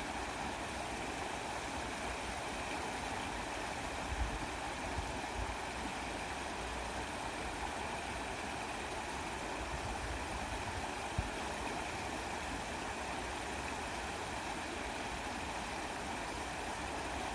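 Steady rushing of flowing stream water, with a few brief low thumps, about four seconds in and again near eleven seconds.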